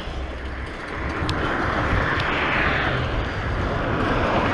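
Wind rushing over an action camera's microphone, with tyre and road noise from a bicycle being ridden along pavement. The rush swells from about a second in.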